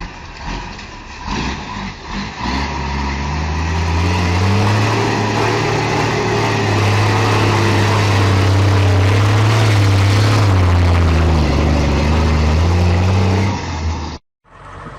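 A large vehicle engine revs up over the first few seconds and then runs loud and hard, its pitch wavering slightly, with some knocks and clatter at the start. It cuts off abruptly near the end and is followed by a quieter engine idling.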